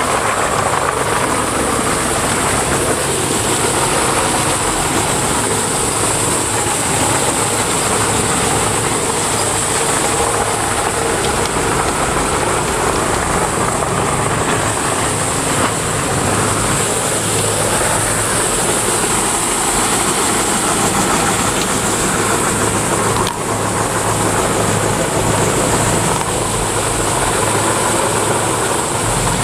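Morbark 2755 flail chipper running, a loud steady machine noise with a low hum and a constant high hiss.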